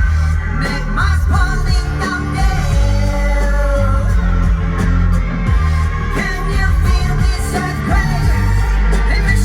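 Live pop-rock song through a loud festival sound system, with heavy bass and drums under singing.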